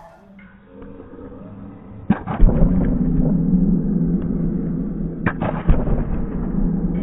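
Sharp knocks from kendo sparring, a cluster about two seconds in and two more near the end, as bamboo shinai strike and feet stamp on the wooden gym floor. From about two and a half seconds on a steady low drone sounds under them.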